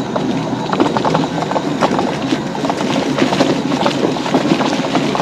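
Electric mobility scooter rolling over a rough dirt trail, its wheels and body rattling with a run of irregular knocks and crunches.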